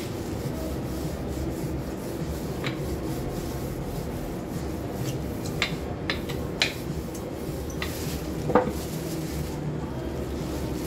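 Wooden rolling pin rolling out bread dough on a floured countertop: a steady rubbing, with a few light clicks and knocks, the loudest a little past eight seconds in.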